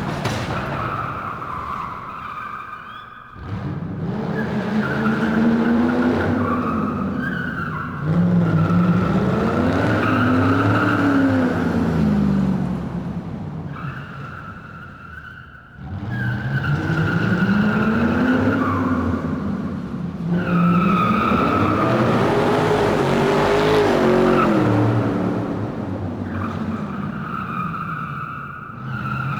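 Car tyres squealing under hard driving, with the engine revving up and down underneath. Each run fades out and a new one starts, twice in the stretch, about twelve seconds apart.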